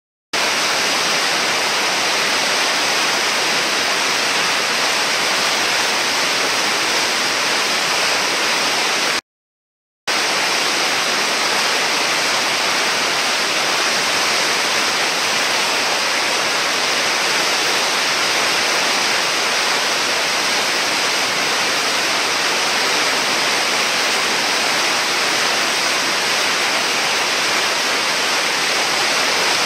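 Whitewater rushing steadily through a river hole, a dense, even roar of foaming water. The sound cuts out completely for about a second around nine seconds in.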